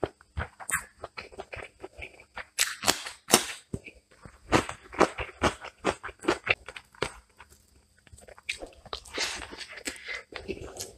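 Close-up mouth sounds of a man eating rice and chicken qorma by hand: irregular chewing and lip-smacking clicks, pausing briefly about two-thirds of the way through.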